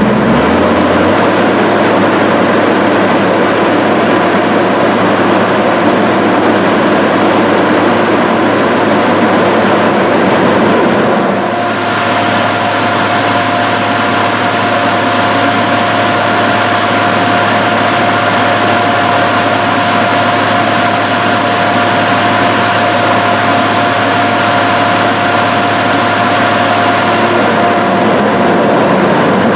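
Forestry machine's diesel engine running at raised throttle with its Cleanfix cooling fan blowing hard, a loud steady noise. The engine note rises in the first second; about eleven seconds in it briefly dips, and after that a steady whine runs until near the end.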